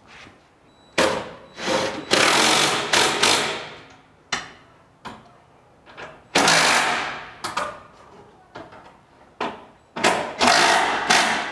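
Handheld power tool, such as a cordless ratchet or driver, spinning in several short bursts of one to two seconds with pauses between, running fasteners on the ABS modulator unit.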